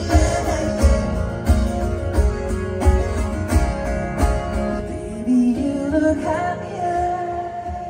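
Live pop song from a big outdoor concert sound system: a male singer singing over acoustic guitar with a steady beat, holding one long note near the end.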